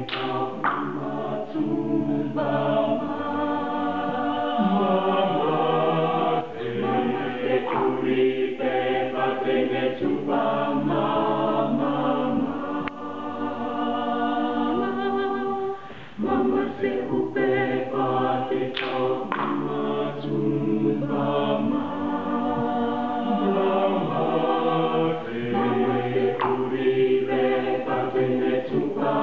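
Mixed men's and women's choir singing a cappella in several parts, sustained chords with no instruments, with a brief break about halfway through.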